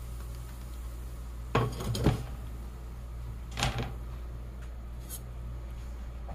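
A frying pan and spatula clattering as cooked chicken pieces are scraped out onto a plastic cutting board and the pan is set down on the stove top: a few short knocks about two seconds apart over a steady low hum.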